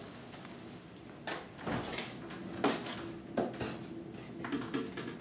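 Kitchen freezer being opened and a chocolate candy mold set inside: a series of clunks and knocks, with a faint steady hum coming in about two seconds in.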